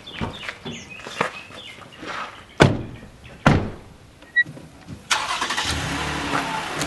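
Two heavy thumps about a second apart, then a car engine starts about five seconds in and keeps running steadily.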